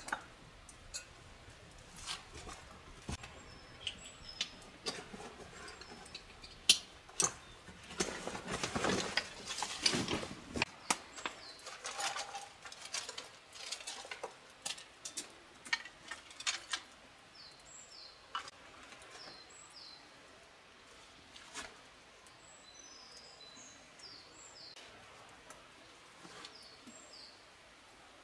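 Scattered sharp clicks and crackles from a small wood campfire and from handling gear, with a denser stretch of rustling about eight to ten seconds in. A few faint bird chirps sound in the second half, where the clicks thin out.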